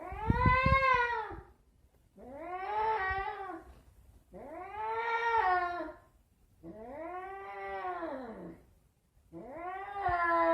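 An old domestic cat yowling: five long, drawn-out meows in a row, one about every two seconds, each rising and then falling in pitch. The first is the loudest.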